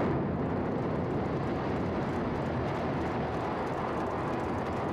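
A 19-storey tower block collapsing after its demolition charges are fired: a heavy, steady rumble of falling structure and debris that eases slightly toward the end.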